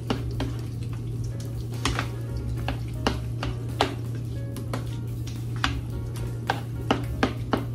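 A metal utensil knocking and scraping against a pot or pan while food is stirred, in irregular clinks about one or two a second, more of them near the end.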